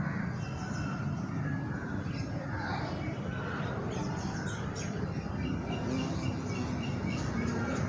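Birds chirping faintly in short high calls over a steady low background noise.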